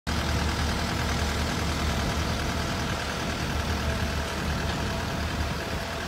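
Construction machinery's diesel engine running steadily: a low, slightly pulsing hum under an even hiss of site noise.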